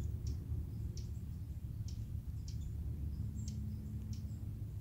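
Short, high chirps of small birds at irregular intervals over a low, steady outdoor rumble.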